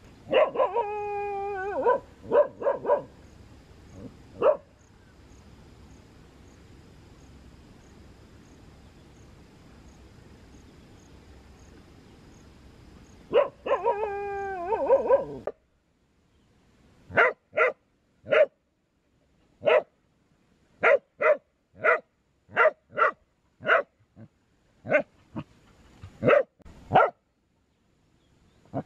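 Dog calling and barking at a crocodile. There are two long drawn-out pitched calls, one near the start and one about 13 seconds in, with a few short yelps after the first. From about 17 seconds on comes a long run of short, sharp barks, roughly one or two a second.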